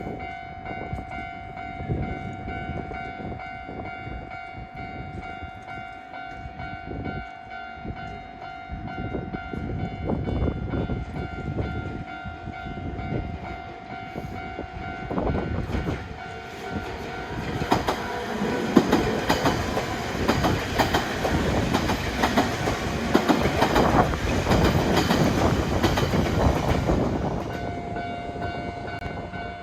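Japanese level-crossing warning bell ringing with a steady electronic tone, then a train passes over the crossing for about ten seconds from around the middle, its wheels clattering over the rails, and the bell is heard again as it goes by.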